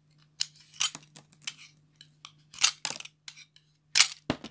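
A blade cutting and scraping PVC insulation off a 10 mm² BYA single-core stranded copper cable: a series of about nine short rasping strokes, the loudest two about four seconds in. A faint low hum runs underneath.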